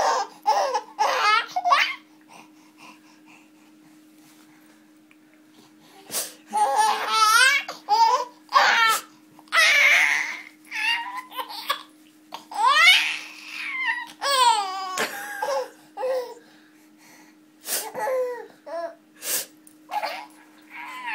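A baby laughing in short bursts of high giggles and squeals as his belly is tickled, with a pause of a few seconds about two seconds in before the laughing starts again.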